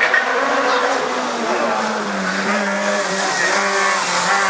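Rally car engine at high revs, loudest right at the start, then holding a steady high pitch from about two seconds in.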